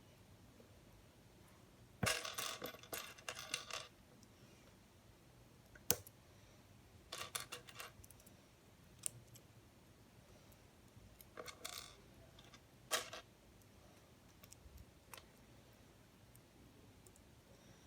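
Plastic LEGO Technic pieces being handled, in short bursts of clattering and clicking, the longest about a second in.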